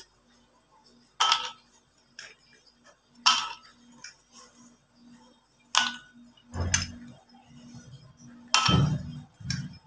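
Ice cubes dropped one at a time into empty glass goblets, each landing with a sharp clink against the glass, about five or six times.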